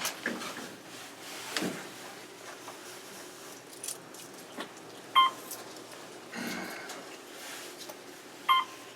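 Otis elevator chime dinging twice, short single tones about three seconds apart, over light clicks and rattles.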